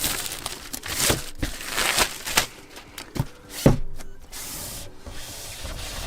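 Keyboard box packaging being opened and handled: irregular crinkling, tearing and rubbing of wrapping and cardboard, with one sharp knock a little past halfway.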